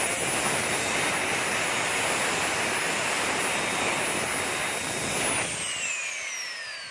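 Backpack wall chaser's 5700 W electric motor running with no load, driving the cutting head through its flexible shaft, with a steady high whine over a rushing noise. About five seconds in it winds down, the whine falling in pitch as the noise fades.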